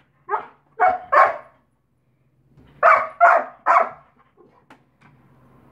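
Saint Bernard barking at a cat, six loud barks in two bursts of three about two seconds apart.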